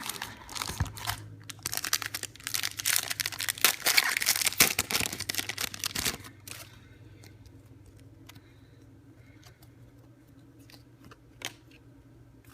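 Trading-card pack wrapper being torn open and crinkled for about six seconds, then light scattered clicks.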